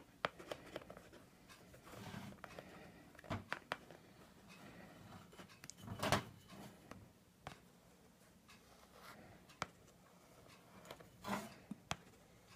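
Quiet handling noises as an aluminum outboard flywheel is turned and shifted by hand on a stainless steel table while Loctite is applied to its rim: scattered light clicks and knocks, the loudest about six seconds in and again near the end.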